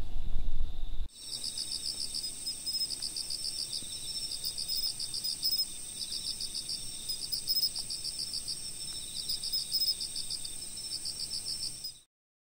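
Night insects, crickets, chirping steadily in a chorus: one constant high trill with rhythmic pulsed chirps beneath it. A low rumble fills the first second, and the chorus cuts off abruptly just before the end.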